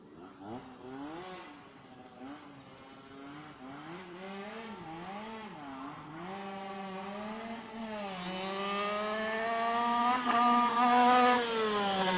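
Two-stroke engine of a Rieju MRT fitted with a 90 cc kit and a 28 mm PWK carburettor, its revs rising and falling over and over as the bike approaches, growing steadily louder and loudest near the end.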